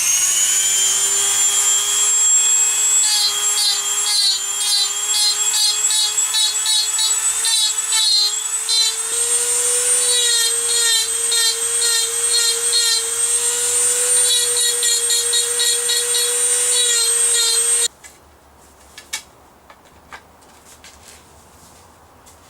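Rotary Dremel tool fitted with a number 117 bit running with a steady high whine while it smooths a red alder cane handle. In the middle stretch the bit bites into the wood in repeated strokes, about two a second, and near the end the tool cuts off suddenly, leaving a few faint clicks.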